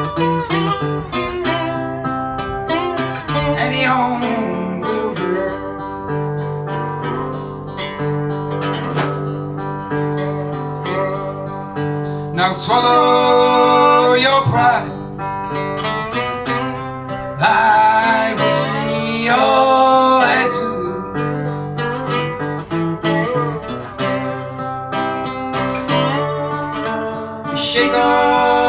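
A man sings a folk/country song live, accompanying himself on a hollow-body archtop guitar with chords played steadily throughout. His voice comes in strongest in two long sung lines near the middle.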